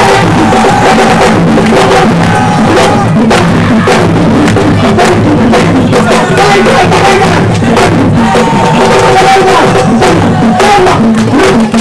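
Loud dance music with a steady drum beat, accompanying a majorette dance.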